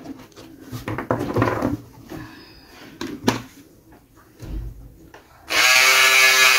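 Light handling clicks and rustles, then about five and a half seconds in a Lenoxx PTE107 battery-powered electric scissors switches on and runs with a steady pitched whir, its blade cutting into fabric.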